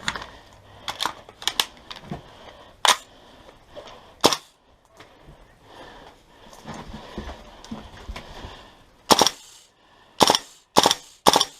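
Airsoft guns firing scattered single shots as sharp cracks, with four loud shots close together near the end.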